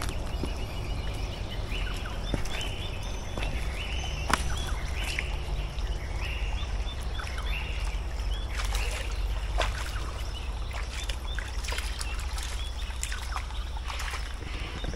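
Footsteps on a wet rainforest walking track, with birds calling over and over in the background and a steady low rumble under it all.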